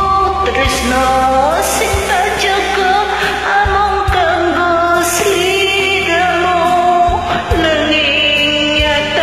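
Singing over a karaoke pop backing track with a steady beat, the voice held on long, gliding notes.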